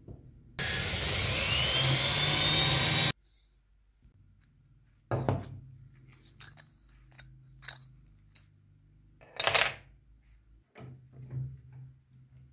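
An electric drill runs for about two and a half seconds, its motor whine rising, as it bores into wood. Then wooden pieces are handled and knocked against the workbench several times, the loudest knock near the end.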